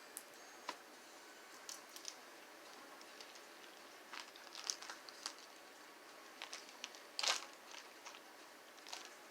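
Faint, scattered small crunches and clicks of someone eating orange Tic Tac mints, the loudest a little after seven seconds in.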